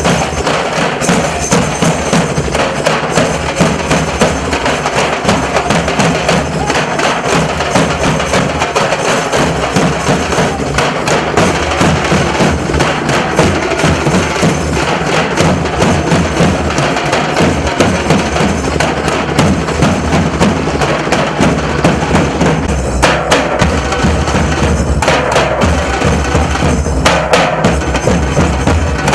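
Nasik dhol troupe drumming loud and fast: a dense, driving beat of stick strokes on the big barrel drums, with sharp high cracks over a heavy bass. The bass grows heavier about two-thirds of the way through.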